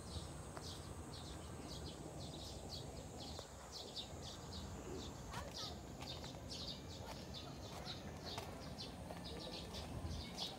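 Small birds chirping: short high chirps repeated in quick clusters every half second or so, over a faint steady outdoor hum.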